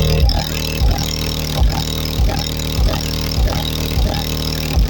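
Bass-heavy hip-hop beat playing loud through a car's stock audio system and subwoofer, with a deep bass hit about every 0.6 seconds over a steady low bass drone.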